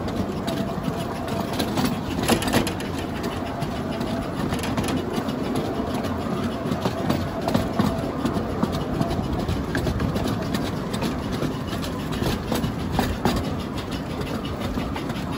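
Train running along the track: a steady rumble with a few faint clicks.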